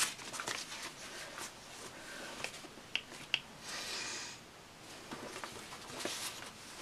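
Paper sticker sheets being handled and shuffled: scattered light taps and paper rustles, with a brief papery swish a little before the four-second mark.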